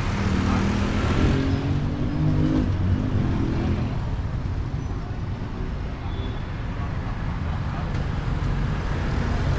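Street ambience: a steady low rumble of passing road traffic, with people talking in the background for the first few seconds.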